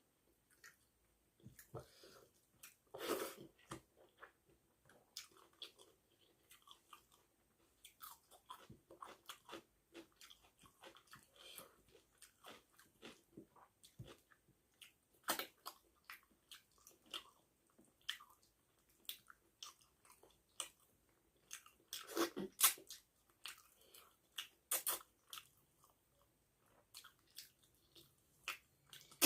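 A person chewing a mouthful of rice and fish curry: irregular wet mouth smacks and clicks, with louder clusters about three seconds in and again around twenty-two seconds.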